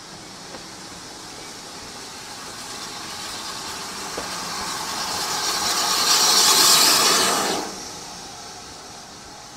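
Ex-GWR 0-6-2T steam tank locomotive hauling coaches, approaching and passing directly underneath. Its steam and exhaust make a hiss that grows louder to a peak about six to seven seconds in, then drops off sharply as the engine goes by and the coaches follow.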